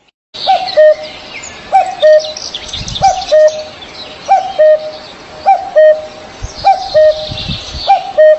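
Birdsong: one bird repeats a low two-part call, a short note dropping into a longer lower note, about once a second, seven times over. Higher, quicker chirps and twitters from other birds run behind it.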